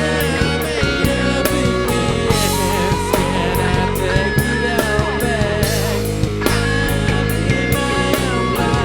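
Live rock music with guitar and drums, in an instrumental stretch between sung lines.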